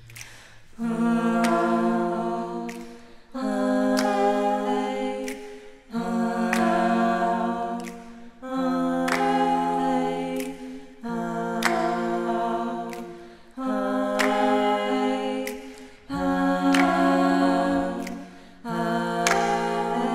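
Vocal ensemble singing a cappella in close harmony: a series of about eight sustained chords, each starting sharply roughly every two and a half seconds, held about two seconds and then fading.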